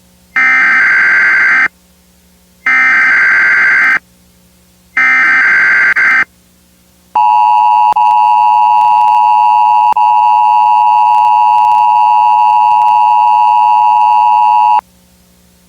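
Emergency Alert System tones: three short bursts of SAME header data tones, each about a second and a half long with short gaps between them. These are followed by the steady two-tone EAS attention signal, held for about eight seconds before it cuts off sharply. Together they announce that an emergency alert message follows.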